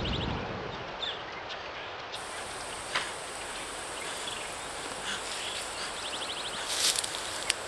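Outdoor ambience among bushes: a steady soft hiss with faint insect trills and a few light snaps. Leaves rustle more loudly near the end. The tail of a deep rumble fades out at the very start.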